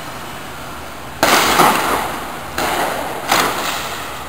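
Three loud shots, the first about a second in, the others about two and a half and three seconds in, each ringing on in a long echo. These are street troops firing tear-gas rounds.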